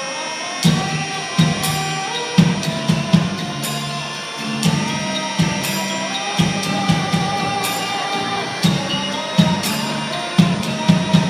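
Live band music over a PA: a gliding, sliding-pitch otamatone melody with a drum-kit beat that comes in under a second in.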